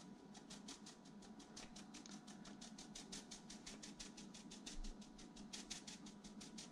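Shaker of blackening seasoning shaken steadily over fish, making a faint, quick, even rattle of about five shakes a second.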